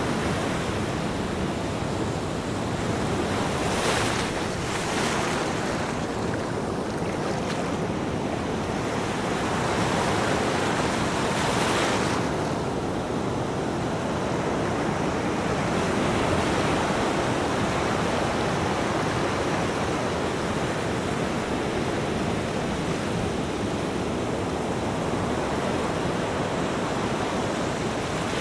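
Ocean waves breaking and washing on a beach: a steady surf wash with several louder breaking swells in the first half.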